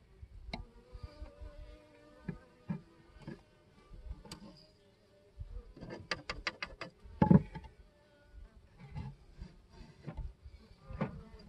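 Honey bees buzzing in a faint steady hum at an open hive, with scattered wooden clicks and knocks as hive top bars are handled: a quick run of clicks about six seconds in and a louder knock just after.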